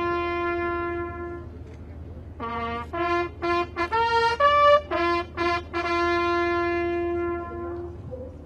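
Bugle call on a single brass horn: a long held note, then a run of short notes stepping up and down through a few fixed pitches, then another long held note.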